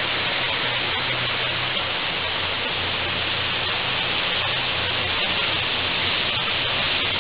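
High-pressure water jet at 350 bar (5000 psi) hissing steadily from a blasting lance, with a low steady hum underneath.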